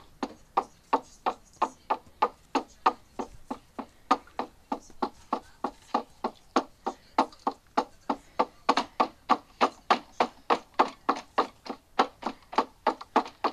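Steam locomotive Duchess of Hamilton working, a steady run of sharp exhaust beats at about three to four a second, heard as a playback of a recording.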